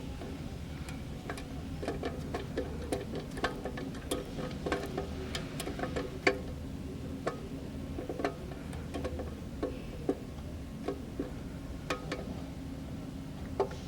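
Irregular light clicks and taps of a screwdriver and small metal parts as the lock's mounting screws are driven in and the spacers lined up, one or two clicks a second, with a sharper click about six seconds in.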